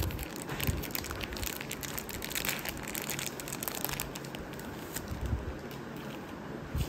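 Clear plastic card sleeve crinkling and crackling as a trading card is handled and slid out of it, in an irregular run of quick rustles.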